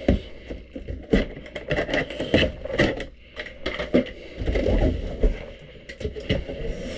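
Large cardboard box being opened by hand: a busy run of knocks, scrapes and rustles of cardboard as the box is worked at and the lid is lifted off.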